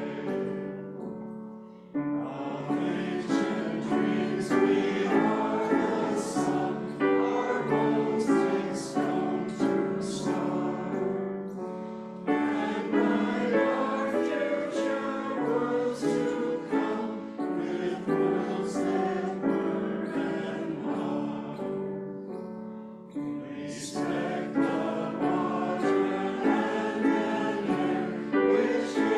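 Congregation singing a hymn together, line by line, with brief pauses between phrases.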